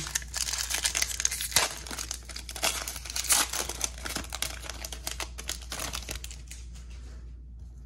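Foil wrapper of a Topps baseball card pack being torn open and crumpled by hand: a dense, crackly crinkling with sharp snaps that dies down near the end.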